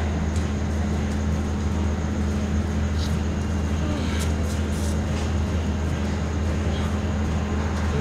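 Steady low drone with a constant pitch, with a few faint clicks about halfway through.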